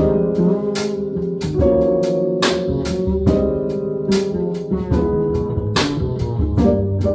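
A live jazz trio playing an instrumental passage: sustained melodic notes over a drum kit, with regular sharp drum and cymbal strikes.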